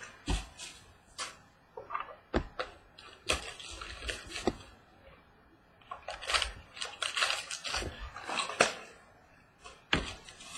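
A sealed box of trading cards and its packs being handled and opened by hand: a string of sharp knocks and clicks with rustling and tearing of packaging between them.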